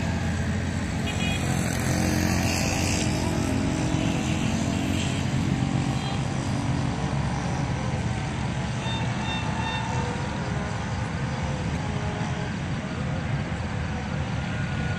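Steady low engine rumble of a diesel-electric locomotive approaching from a distance, mixed with the general hum of a town's traffic.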